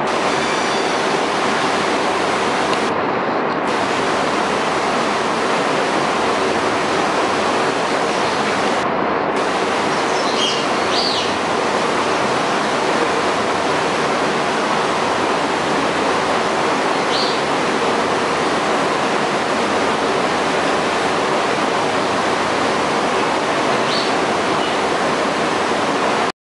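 A steady, even rushing noise with a faint hum underneath, broken by a few brief high chirps about ten, seventeen and twenty-four seconds in.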